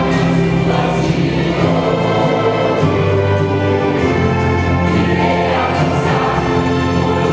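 Church choir singing a gospel hymn in full chorus with an orchestra accompanying, sustained and steady throughout.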